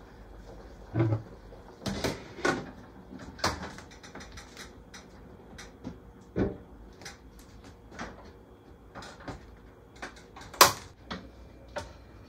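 Irregular knocks and clinks of pots, pans and dishes being handled at a kitchen stove and sink, with one sharp clank near the end.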